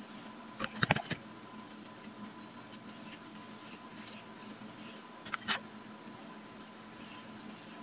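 Hairbrush drawn through long wet, conditioner-coated hair: soft scratchy brushing with a few sharp clicks about a second in and again about five and a half seconds in.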